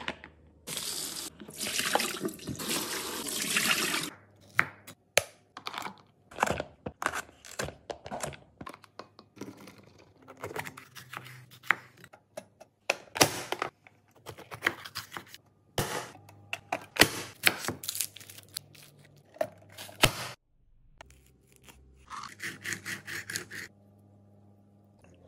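Tap water running into a colander for about three seconds, then a kitchen knife chopping vegetables on a wooden cutting board in irregular strokes, with a quick run of chops near the end.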